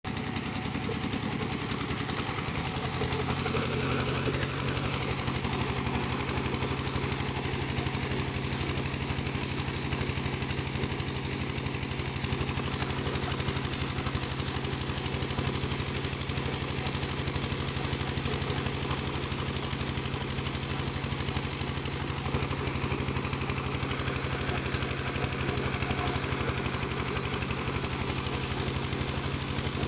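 Piling machine's engine running steadily with a fast, even chugging beat.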